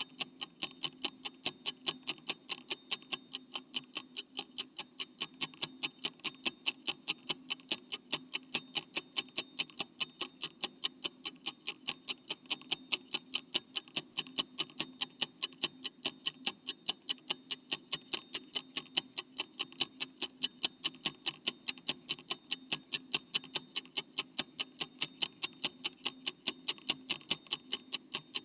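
Clock ticking fast and evenly, about four sharp ticks a second, with no change in speed or level.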